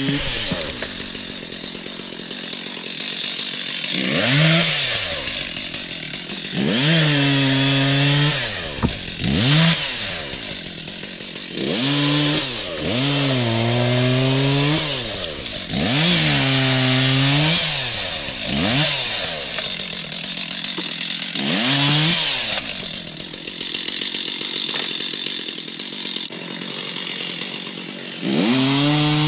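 Stihl chainsaw revving and cutting log-jam timber in a series of cuts. The engine climbs to full speed, holds there, then falls back to idle about eight times, with the longest runs in the middle.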